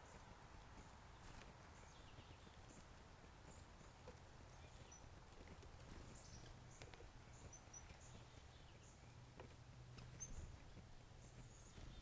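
Downy woodpecker pecking at a suet cake in a wire cage feeder: faint, irregular taps, with a few faint, short, high chirps from other birds.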